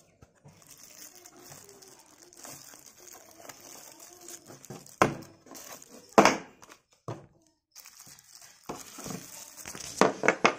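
Thin plastic bag crinkling and rustling as a new drill chuck is handled and taken out of it, with a few louder crackles and knocks about 5, 6 and 10 seconds in.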